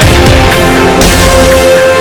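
Loud, hard-driving background music with a heavy low end.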